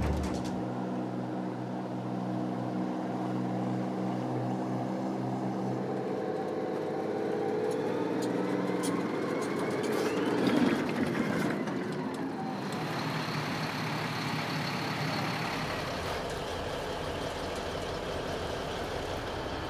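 Military vehicle engines running. Around the middle, the engine of a tracked armoured personnel carrier revs up, rising in pitch, as it drives onto a ferry bay; after that a rougher vehicle noise takes over.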